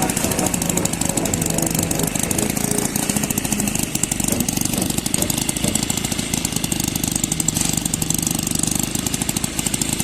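Construction machine engine running steadily, with a fast, even rattle throughout.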